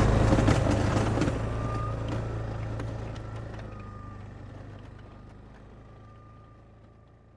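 A Yamaha Kodiak 350 ATV's engine runs steadily as the quad moves along with its snow plow mounted, and the sound fades out smoothly.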